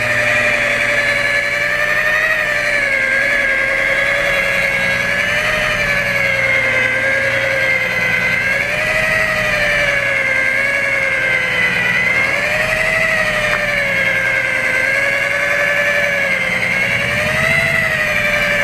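Electric rotary polisher spinning a wool buffing pad loaded with compound against oxidised fiberglass at a low speed setting, a steady whine that wavers slightly in pitch every few seconds as the pad is worked over the surface.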